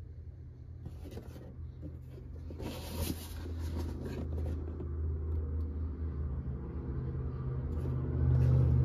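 Cardboard box being handled and turned over, with a short scrape and rustle about three seconds in, over a low steady rumble that grows louder toward the end.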